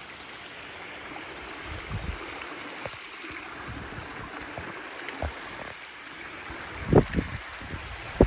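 Gerringong Creek's water sliding over the rock lip at the top of Gerringong Falls, a steady rushing sound. A few low thumps of wind buffeting the microphone break in, the loudest about seven seconds in and another just before the end.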